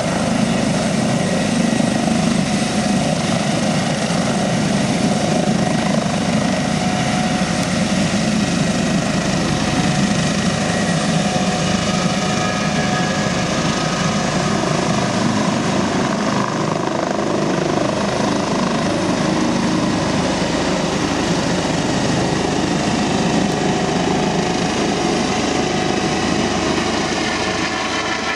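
Airbus H145 helicopter lifting off and climbing away: steady, loud rotor and twin-turbine noise with a high whine, easing a little near the end.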